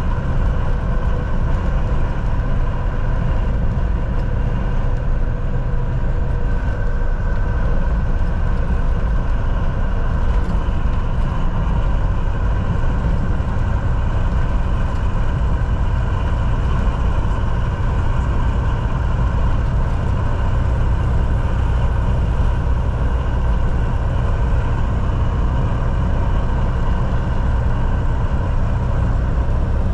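Semi-truck driving at a steady speed: a constant engine drone with road noise, unchanging in pitch or level.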